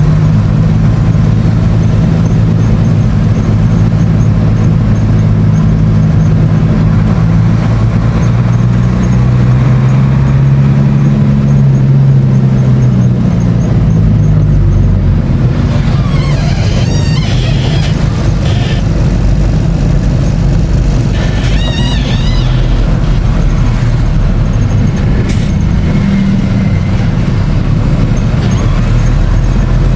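A road vehicle's engine running as it drives, a steady low drone that rises in pitch about ten seconds in and falls back a few seconds later. A few brief, higher warbling chirps come in the second half.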